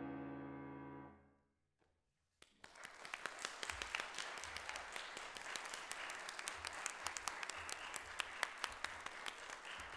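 The last chord on an August Förster grand piano rings out and fades away. After a moment of silence, the audience breaks into applause about two and a half seconds in and keeps clapping.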